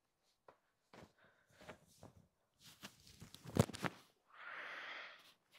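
Clothes and packaging being handled: scattered rustles and soft knocks, a sharper knock about three and a half seconds in, and a brief swishing rustle near the end.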